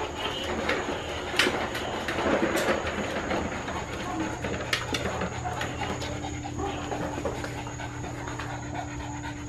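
Plastic wheels of a child's tricycle and a ride-on toy rolling over concrete: a steady rumble and rattle with scattered sharp clicks.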